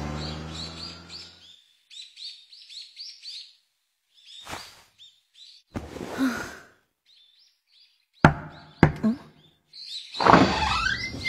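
Birds chirping lightly in a soundtrack ambience, after a held music note fades out. About eight seconds in come two sharp knocks, a little over half a second apart, the loudest sounds here.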